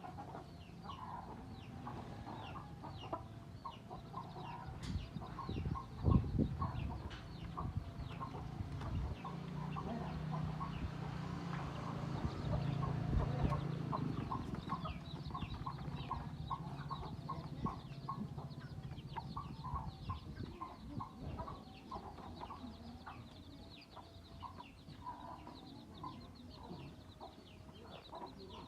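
Chickens clucking over and over in short, repeated calls, with a thump about six seconds in and a low steady hum under the middle stretch.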